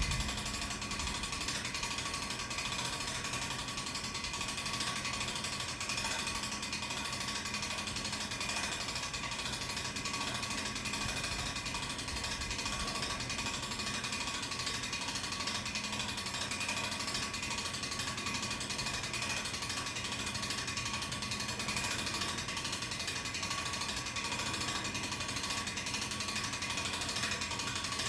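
Hand-cranked cable winch with its ratchet pawl clicking steadily and rapidly as the crank is turned, hauling a tower pole up on its cable under load.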